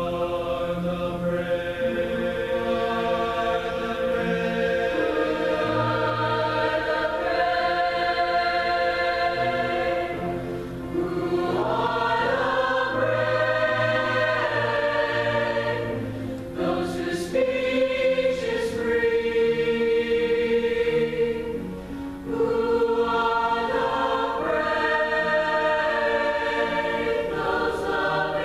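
Concert choir singing in parts, long held notes in phrases with brief breaths between them.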